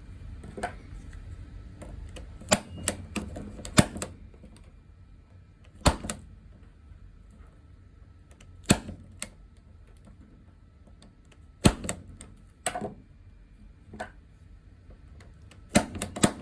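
Punch-down tool snapping sharply as it seats the wires of a Cat 6 cable into the connector's contacts and slices off the excess. About a dozen separate clicks come at irregular intervals, some in quick pairs, as one wire after another is punched down.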